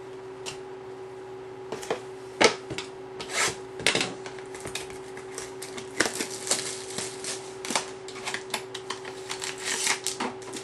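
A foil trading-card pack being torn open and its wrapper crinkled as the cards are pulled out: a string of sharp crackles and clicks, sparse at first and dense from about halfway through.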